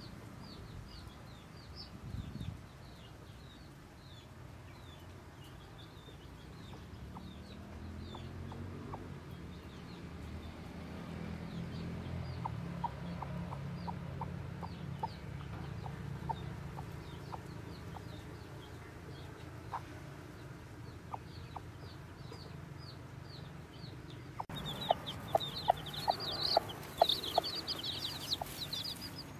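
Broody hen making a low, drawn-out clucking on the nest, over faint, repeated high peeps. About 25 seconds in, the sound changes abruptly to chicks peeping loudly and rapidly around the hen, with sharp clicks among the peeps.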